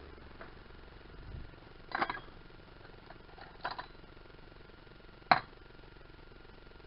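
Metal hand tools (wrenches and sockets) clinking against each other in a toolbox tray as a gloved hand rummages through them: three sharp clinks, the last, about five seconds in, the loudest.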